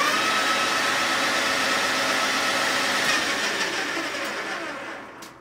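ANMEC BL330E gear-head lathe spindle running unloaded at high speed, with a steady whine from the headstock gears. About three seconds in the pitch starts to fall and the sound fades away as the spindle coasts down.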